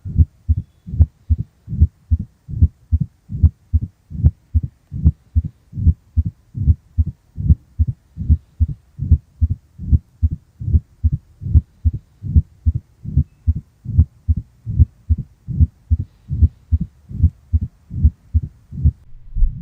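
Recorded human heart sounds: steady lub-dub beats in evenly repeating pairs, a little over one heartbeat a second.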